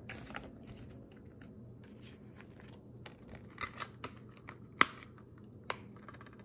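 Plastic Blu-ray case and its clear plastic wrapper being handled: soft crinkling with a few sharp plastic clicks, the loudest a little under five seconds in.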